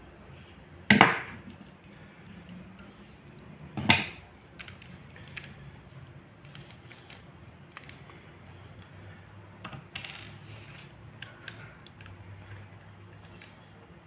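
Small metal clicks and scrapes from a screwdriver working in the brass cylinder of a Lockwood 334M45 padlock as it is taken apart, with two much louder metallic clinks about a second in and near four seconds in.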